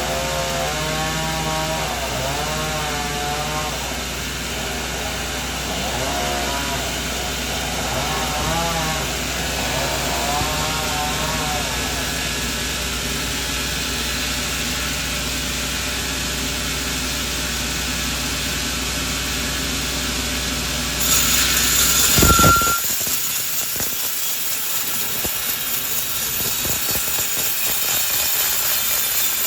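Sawmill machinery running with a steady low hum and a shifting whine from the saw, then a short loud burst and a brief high tone about twenty-two seconds in, after which the low hum stops.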